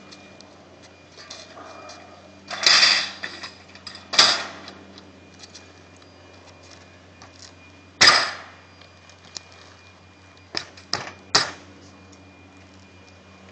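Sharp metallic bangs and clatters from standing-seam metal roof panels being handled and worked with hand tools: a longer rattle about three seconds in, single bangs about four and eight seconds in, and three quick clicks near the end.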